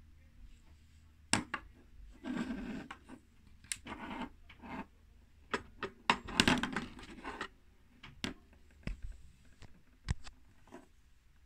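Handling noise: irregular clicks, taps and short scraping rubs as the wooden case of a mantle clock is handled, with no steady rhythm.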